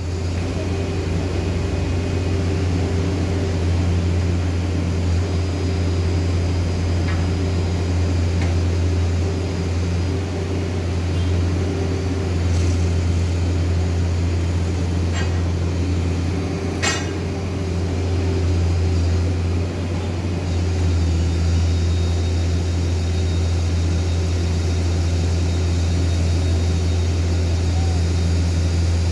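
An engine running steadily at an unchanging pitch, with a few sharp clicks or knocks, the clearest about seventeen seconds in.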